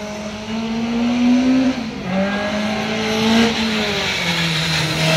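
Competition hatchback's engine revving hard through a slalom course, its pitch climbing and then falling away twice as the car accelerates and backs off, growing louder as it approaches.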